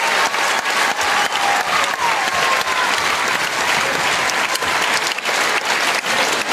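Large arena crowd applauding: a dense, steady clatter of many hands clapping.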